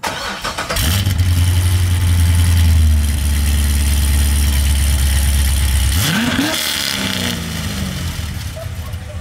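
Corvette C6 Z06's 7.0-litre LS7 V8 idling through long-tube headers, a cat-less X-pipe and the stock NPP mufflers. About six seconds in it is blipped once: the pitch rises quickly and falls back to idle.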